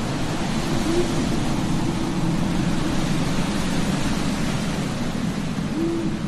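An owl hooting twice, short single hoots about a second in and near the end, over a steady rushing noise.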